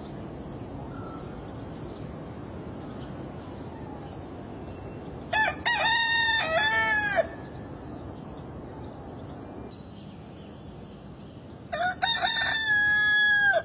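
Rooster crowing twice, about six seconds apart, each crow a short opening note followed by a long held cock-a-doodle-doo, over a steady low background hiss.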